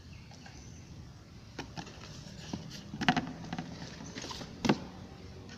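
Cardboard box being handled and its lid closed: a scattering of light knocks and scrapes, the loudest about three seconds in and another sharp knock near the end.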